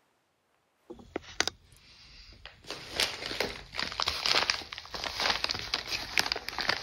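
White plastic mailing bag crinkling and rustling as hands handle it: a quick run of crackles that starts about a second in and grows busier.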